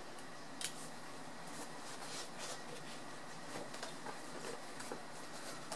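Faint handling sounds of eyeglasses being set down and picked up: light rustling and a few small clicks over steady room hiss.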